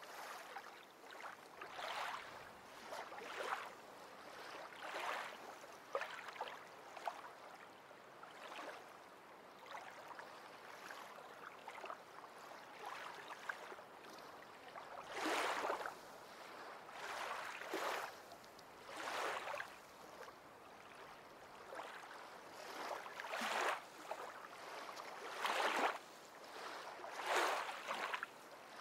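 Water lapping and splashing in irregular swells, one every second or two, over a steady wash.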